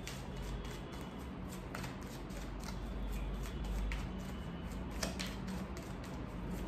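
A tarot deck being shuffled by hand: cards slipping and tapping against each other in a steady run of soft clicks, with one sharper snap about five seconds in.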